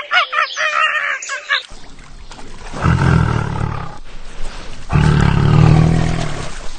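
A large animal giving two long, deep roaring calls, the second longer than the first. Before them, quick repeated bird calls run on and break off under two seconds in.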